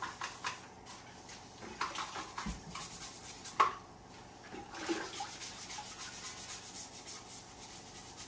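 A dirt-crusted soil scoop being scrubbed clean in water: a few knocks and sloshes, one sharp knock about halfway, then a run of quick scrubbing strokes over the last few seconds.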